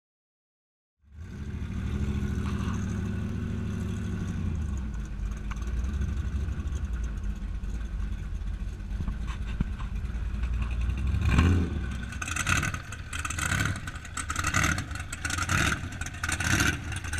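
Small-block Chevrolet V8 (a 400 destroked to 377 cubic inches) in a 1964 Chevrolet Impala drag car, running as the car rolls slowly. It starts about a second in and is heard from inside the cabin as a steady low drone. About eleven seconds in the sound turns choppy and uneven, with repeated surges.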